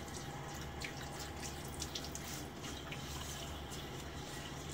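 Bathroom sink tap running, with scattered splashes and drips of water as a face is wetted with cool water.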